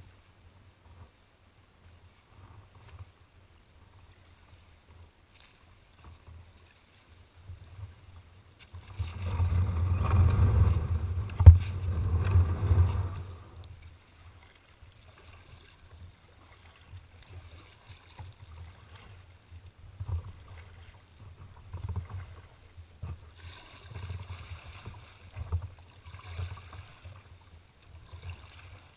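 Kayak hull scraping over a gravel beach for about five seconds as it slides into the water, with one sharp knock partway through. Afterwards come softer, irregular splashes of water and paddle as the kayak moves off.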